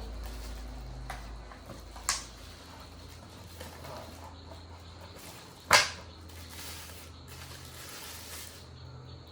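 Handling noise from unboxing a gimbal and its packaging, with two sharp clicks, one about two seconds in and a louder one a little before six seconds. A low hum fades out early on.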